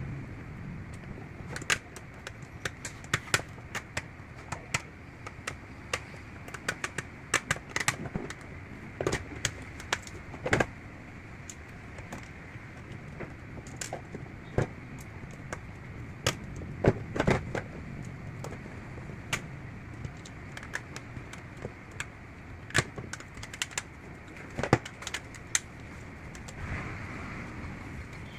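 Irregular light clicks and taps from hands handling a Bluetooth speaker and small repair tools, over a steady background hiss.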